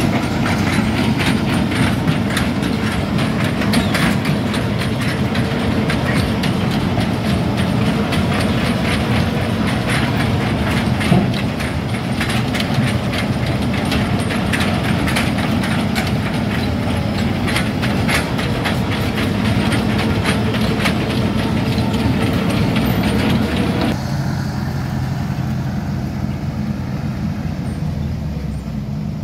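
Amphibious excavator's steel pontoon tracks clanking and rattling in a fast, busy clatter as it travels, over the low hum of its diesel engine. About 24 s in the clatter cuts off, leaving a steadier, lower engine drone.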